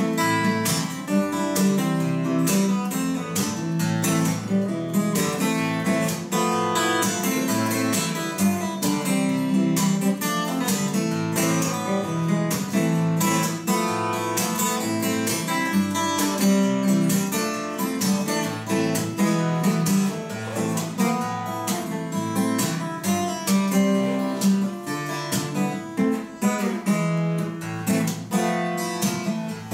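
Solo acoustic guitar strummed in a steady rhythm, an instrumental passage with no singing.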